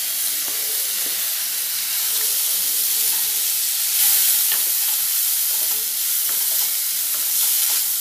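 Chopped onions sizzling as they fry in hot butter and oil in a steel kadai, with a wooden spatula stirring and scraping, tapping the pan now and then.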